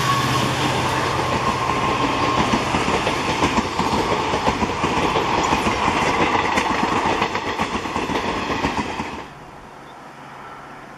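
Passenger train running past at speed, its wheels clattering over the rail joints, with the tail of its horn note fading in the first second. The clatter cuts off suddenly about nine seconds in, leaving a quiet low hum.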